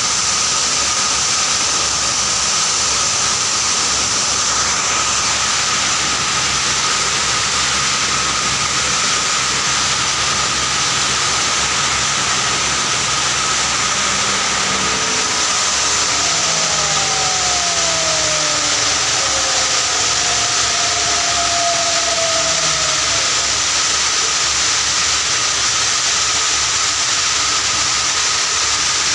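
Shaker grinder (sugar powder pulveriser) running steadily while grinding, a loud even noise with a constant high whine and hiss.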